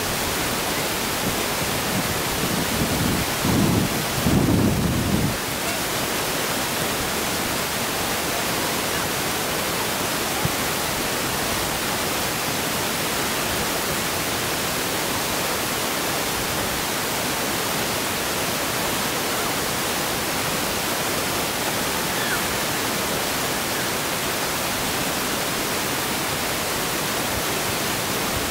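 Wind buffeting the microphone in low rumbling gusts for the first five seconds, over a steady loud hiss.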